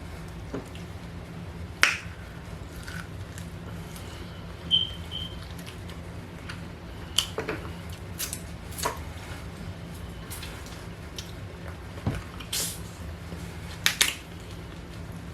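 Close-miked eating of lamb chops: irregular chewing with sharp mouth clicks and smacks, about a dozen spread through, over a steady low hum.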